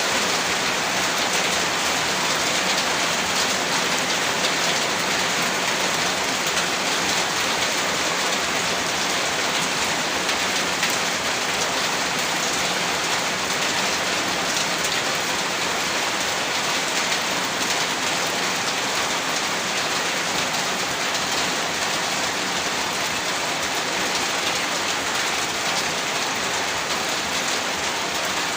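Steady rainfall: a continuous, even hiss of countless drops that holds at the same level throughout, with no thunder.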